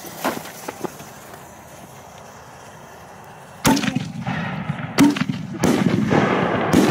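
Firework shells going off: a sharp loud bang about halfway through, then three more over the next few seconds, with a steady hiss building between the later ones.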